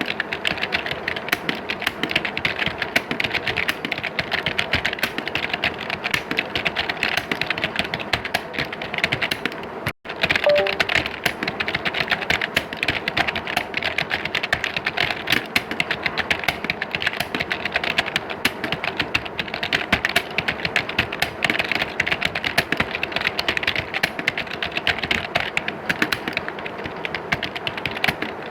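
Many computer keyboards being typed on at once, a dense, continuous clatter of key clicks like a room full of typists. The sound cuts out for an instant about ten seconds in, then carries on.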